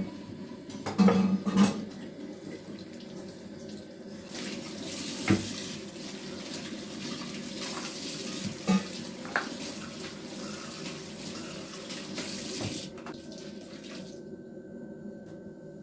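Water running from a tap into a sink, with a few short knocks of things being handled; the running water stops about three-quarters of the way through.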